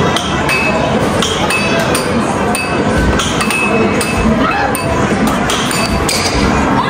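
Repeated sharp clinks, irregular at about two a second, some with a short ringing tone after them, over steady background noise.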